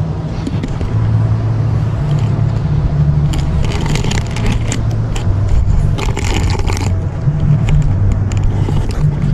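A vehicle engine running steadily with a low hum, with frequent clicks and scraping rattles over it.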